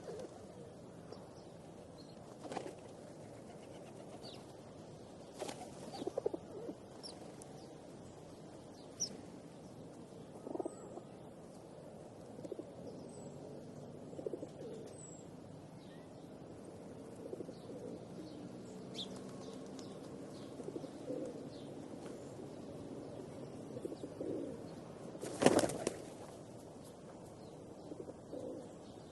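Pigeons feeding: low cooing runs on throughout, with scattered short taps from pecking. A loud burst of wing flapping comes near the end.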